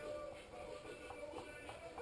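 Background music with held, changing tones.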